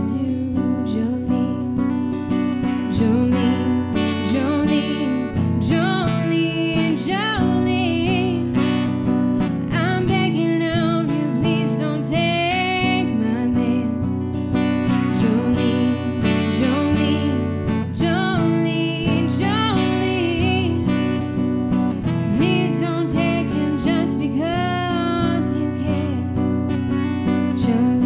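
Music with guitar, a melody line wavering in pitch over steady held notes.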